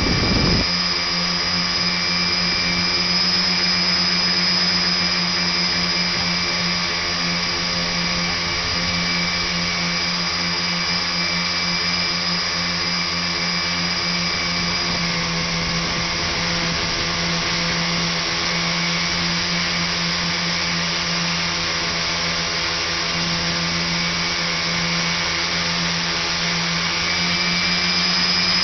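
Multirotor drone's electric motors and propellers whining steadily in flight, a constant motor buzz over rushing propeller noise, a little louder near the end.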